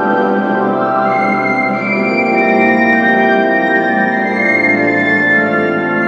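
Organ and txistu, the Basque three-holed flute, playing together: sustained organ chords with a high, changing flute melody above them from about a second in.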